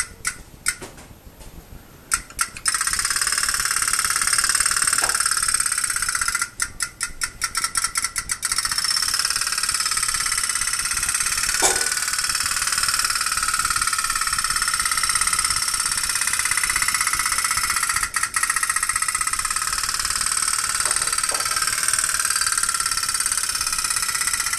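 Candle-heated pop-pop boat's toy steam engine running with a steady rapid putter. It cuts out briefly near the start and stutters for a couple of seconds a little later before running on evenly.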